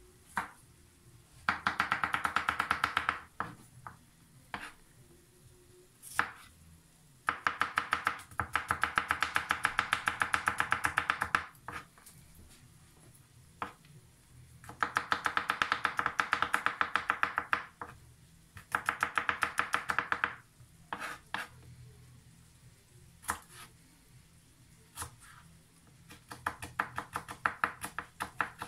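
Kitchen knife rapidly mincing garlic on a plastic cutting board: quick runs of sharp taps lasting a few seconds each, with short pauses between them, five runs in all.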